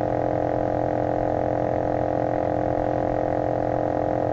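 A steady hum of several held tones that stays even and unchanged throughout.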